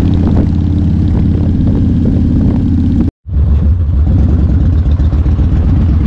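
Yamaha XV1600 Road Star's air-cooled V-twin running under way, heard up close from on board the bike: a loud, steady low rumble. It drops out for a split second about three seconds in, then carries on.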